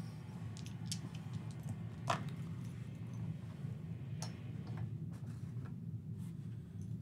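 A few scattered light clicks, the loudest about two seconds in, over a steady low hum.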